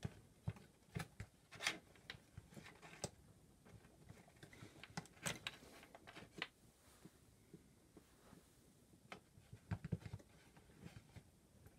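Faint, scattered clicks, taps and short scrapes of hands handling a Quick Disk drive's metal chassis and circuit board on a wooden bench.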